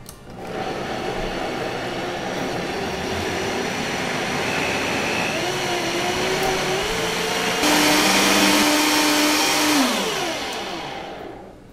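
Vitamix blender motor running, puréeing a thick jalapeño mayonnaise, its pitch creeping up as it spins faster. About two-thirds of the way in it jumps louder to high speed, then it is switched off and winds down with a falling pitch, stopping just before the end.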